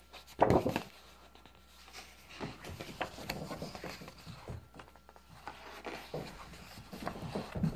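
Pages of a picture book being turned by hand: paper rustling and flapping, with one louder flap of a page about half a second in and lighter rustles after.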